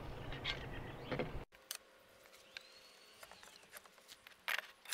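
Bar clamps being handled and tightened on a glued plywood frame: scattered sharp clicks and knocks of the clamp bars and jaws, loudest in a cluster about four and a half seconds in. A steady background hiss cuts off abruptly about a second and a half in.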